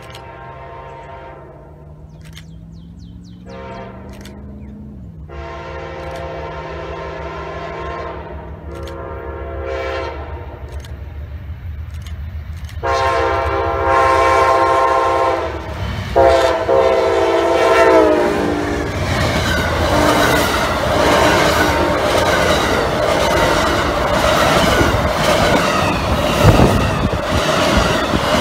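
Horn of an Amtrak P42DC diesel locomotive sounding a series of blasts for a grade crossing, growing louder as the train approaches, the last and loudest held for several seconds. The train then passes close by: locomotives and passenger cars rumbling, with wheels clattering over the rails.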